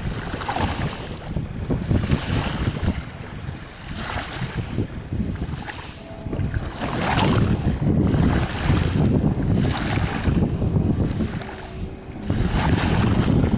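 Wind rumbling on the microphone, swelling and fading, over a 4.5 m Hannibal speedboat running fast on open water with its outboard motor.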